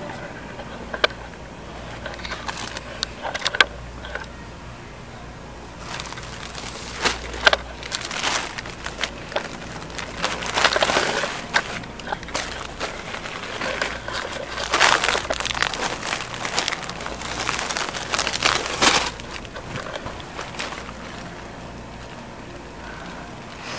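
Plastic-wrapped packs of toilet paper being handled and moved, the wrapping crinkling and rustling in irregular bursts, with a few sharp knocks.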